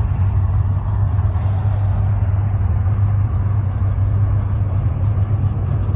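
Steady low engine drone from vehicles nearby, with a constant wash of street noise and no car passing.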